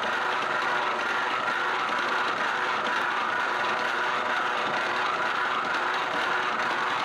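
Electric noodle-rolling machine running steadily, its rollers pressing a sheet of yellow noodle dough as it feeds out.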